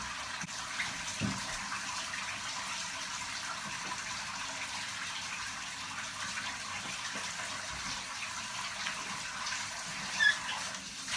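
Shower running: a steady hiss of falling water.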